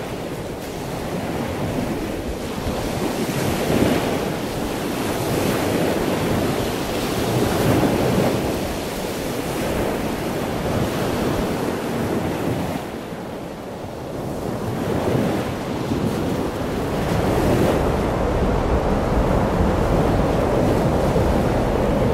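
Ocean surf: waves breaking and washing in, a steady rush that swells and eases every few seconds. Wind buffets the microphone, with a low rumble that grows stronger near the end.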